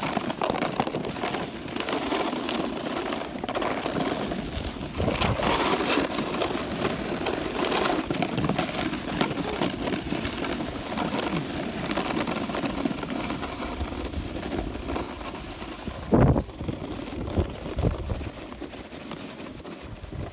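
Snowboard sliding along a hard-packed snowy trail: a continuous rough scraping hiss of the base on snow, mixed with wind rushing over the microphone. A single thump about sixteen seconds in.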